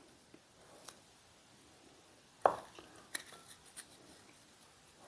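Faint scattered clicks and crackles of crushed vanilla wafer crumbs being pinched and sprinkled by hand onto a whipped-topping cupcake, the sharpest click about halfway through.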